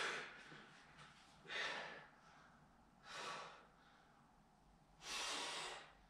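A rock climber's hard, forceful exhalations, four hissing breaths about a second and a half apart, the last one longer, as he pushes through the final moves of a strenuous route.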